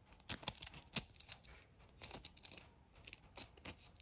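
A small tool probing and scraping inside the hole in the end of a rusty antique key, clearing out rust: a run of irregular sharp clicks and short scrapes of metal on metal.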